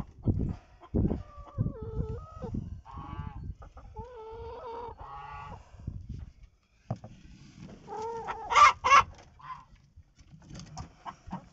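Hens clucking and giving drawn-out calls, then two loud squawks about eight and a half seconds in. Low rustling and knocks run underneath.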